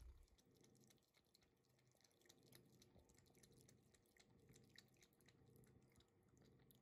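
Faint, quick wet clicks and splashes of a cat's tongue lapping water from a drinking glass, over a quiet room hum.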